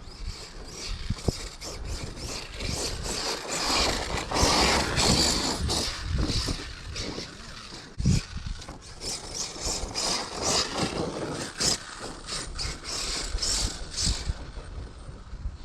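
Large electric RC basher truck driving over dirt and gravel: tyres scraping and throwing stones, with the chassis knocking and rattling over the rough ground. It is loudest about four to five seconds in, with a sharp knock about eight seconds in.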